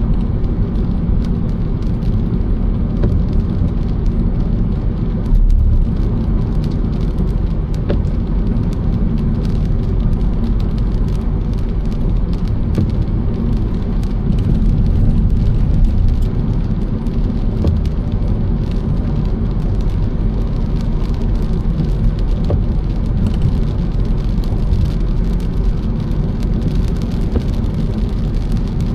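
Car driving on a wet road, a steady low rumble of engine and tyres, with many small ticks of raindrops striking the car throughout.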